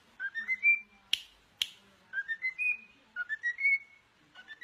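Cockatiel whistling a short stepped phrase that rises in pitch, repeated about three times, with two sharp clicks about a second in.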